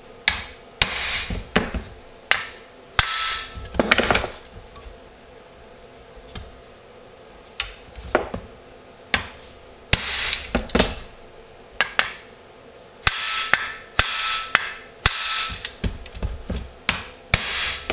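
Irregular hammer taps on a steel punch against the crankshaft end of a chainsaw crankcase, single knocks and quick clusters, a few with a short metallic ring. The taps relieve the preload trapped by newly fitted crank bearings so that the crank will turn over freely.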